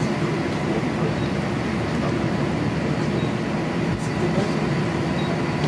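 Steady running noise of a moving regional train heard from inside the carriage: an even rumble and rattle with no clear rhythm.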